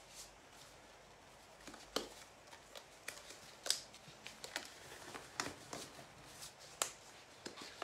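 Hands pulling on cotton gloves: faint, irregular fabric rustling with scattered sharp little clicks.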